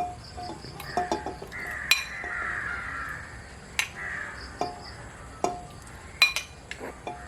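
Metal utensils clinking against a pot as beef pieces are put into a pressure cooker, with sharp clinks every second or so. A crow caws for about two seconds, starting a little after a second in.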